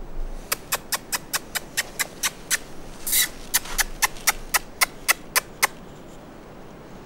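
Mouse-like squeaks made as a lure call for a fox: a rapid series of short, sharp squeaks, about four a second, with one longer hissing squeal about three seconds in, stopping near the end.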